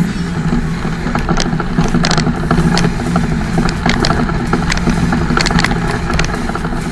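Cummins M11 inline-six diesel in a 1995 Freightliner FLD112 running at a steady engine speed as the truck drives along loaded with a 58,000-pound steel coil. Heard from outside the cab, with wind and road noise and scattered sharp clicks and rattles.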